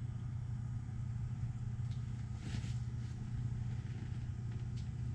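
Steady low mechanical hum of a running motor or machine, even throughout, with a faint brief rustle about two and a half seconds in.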